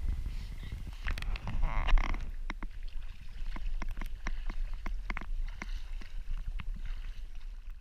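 Lake water lapping and splashing against a camera held at the surface by a swimmer, with many sharp ticks of water hitting the housing over a low rumble. There is a louder splash about two seconds in.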